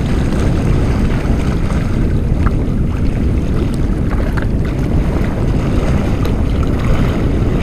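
Wind buffeting the microphone, a steady low rumble, over sea water lapping and splashing against rocks.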